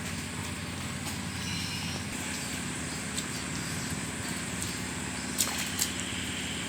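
A motor running steadily at a low pitch, with two sharp clicks near the end.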